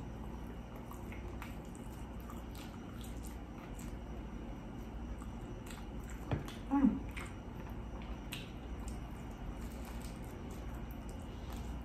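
Close-miked eating sounds: soft wet chewing and mouth clicks, with a brief louder knock and a short low sound a little past halfway.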